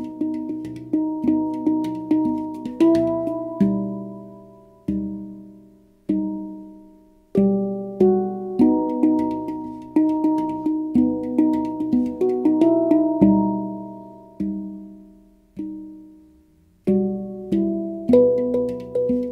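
Pantheon Steel Halo handpan in the Onoleo scale played with the hands: runs of quick struck notes that ring with overtones and decay, between slower stretches where single notes are left to ring out.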